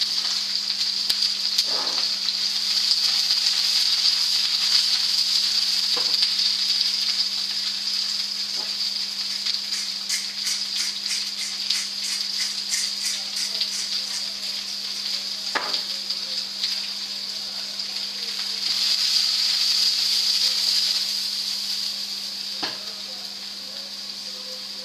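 Sliced leeks and mushrooms sizzling steadily as they fry in a nonstick pan, with a few single knocks in the pan. About ten seconds in, a pepper mill is ground over the pan: a quick run of clicks lasting about four seconds. A steady low hum runs underneath.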